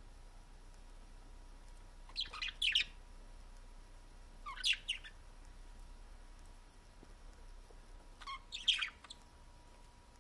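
Budgerigars chirping in three short bursts of quick, warbling chatter, about two, four and a half, and eight and a half seconds in.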